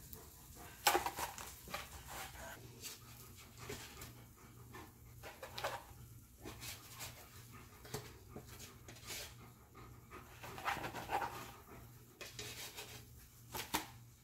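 A dog panting close by, with a few light taps and scrapes of a spatula against a frying pan and plastic plates as pancakes are served.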